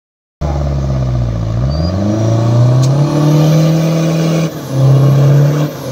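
Mitsubishi Pajero's engine pulling a weight-transfer sled under full load: the revs climb about a second and a half in and then hold high, with two short dips near the end.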